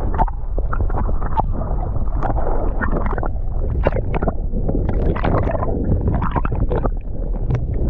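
Sea water sloshing and splashing close to the microphone in irregular small splashes, over a steady low wind rumble on the microphone.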